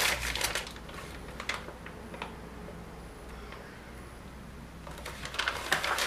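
Colltex climbing skin being laid back onto the ski base and smoothed down by hand: crackling and light clicks, dense at the start and again near the end, with a quieter stretch in between.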